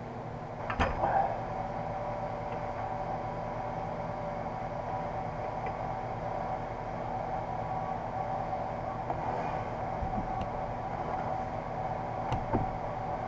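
A steady machine hum with a constant whine, getting louder with a sharp knock about a second in. A few light clicks and another knock near the end come from handling the exhaust header during wrapping.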